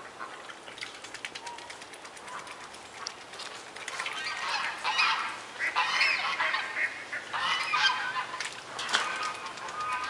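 Swan honking: a run of loud, nasal calls from about four seconds in until near the end, after a few seconds of light clicking.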